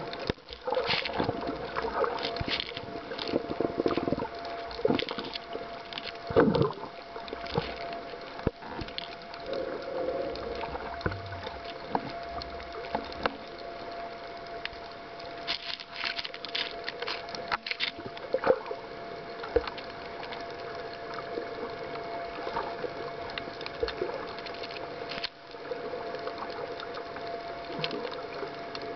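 Water sloshing and bubbling heard underwater from just below the surface while snorkeling, with scattered sharp clicks and knocks and a steady faint hum.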